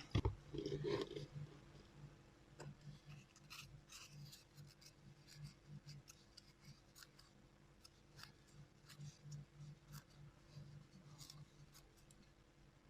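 Faint, irregular scratching and rubbing with scattered light ticks: a mouse circuit board being scrubbed clean with alcohol around freshly desoldered switch holes.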